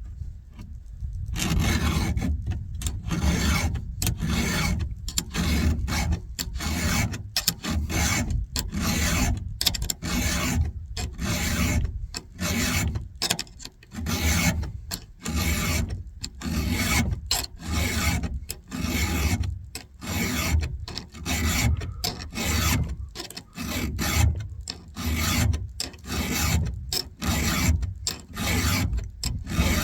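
A file being drawn across the cutter teeth of a rusty chainsaw chain, hand sharpening, in regular rasping strokes a little more than one a second, starting about a second in. The teeth are chipped and worn from cutting into bolts in a stump.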